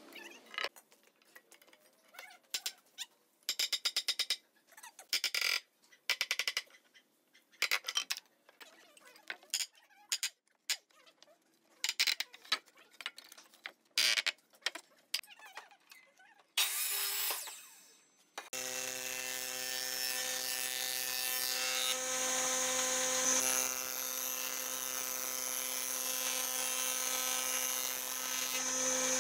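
Nails being pulled out of a wooden beam with pliers levered against a hammer and with a pry bar: scattered knocks, scrapes and short rattling clicks of metal on wood with pauses between them. About two-thirds of the way through, a combination jointer-planer takes over, running steadily with a hum and hiss as a board is pushed across its bed.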